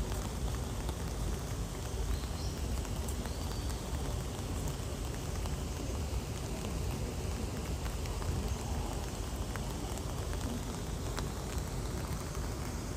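Steady rain falling, with faint scattered drop ticks over a low rumble.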